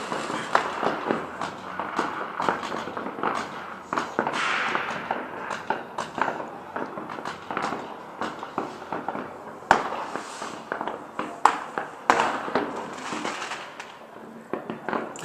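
Fireworks and firecrackers going off all around: a continuous, irregular barrage of bangs and crackling, with a few sharper, louder bangs near the middle.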